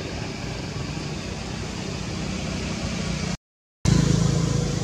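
A motor engine running steadily. Near the end the sound cuts out completely for about half a second, then comes back louder.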